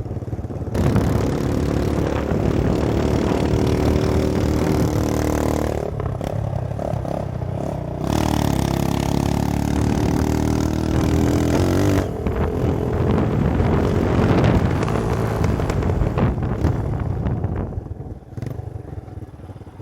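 Motorcycle engine pulling under acceleration, its note climbing in two long runs that break off about six and twelve seconds in, over a steady rushing noise.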